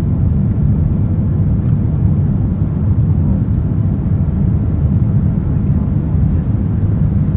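Boeing 787 jet airliner noise: a steady, loud low rumble that holds even throughout.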